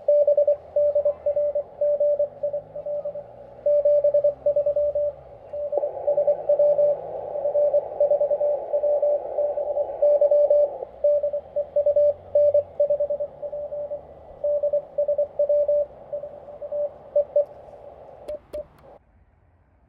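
Morse code (CW) from the Xiegu G90 HF transceiver's speaker: a single steady tone keyed on and off in dots and dashes over narrow-filtered receiver hiss, which swells for a few seconds in the middle. The audio cuts off with a couple of clicks near the end.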